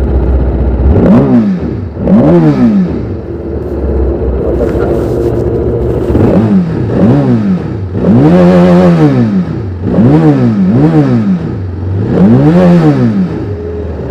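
TVS Apache RR310's 312 cc single-cylinder engine on its stock exhaust, idling just after a start and blipped about eight times. Each rev rises and falls quickly, with one longer rev near the middle.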